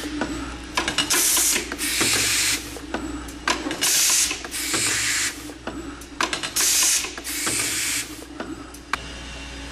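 Pneumatic actuators of a CNC vertical boring machine hissing as they release air in three pairs of short bursts about three seconds apart, with clicks and knocks from the moving head between them and a steady machine hum underneath. This is the machine pressing plastic receivers for Blum hinges into the freshly drilled holes.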